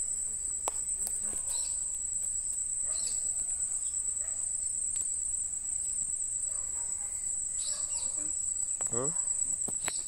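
Steady high-pitched insect trill, a continuous finely pulsing note like crickets, with faint scattered calls underneath and a short rising call about nine seconds in.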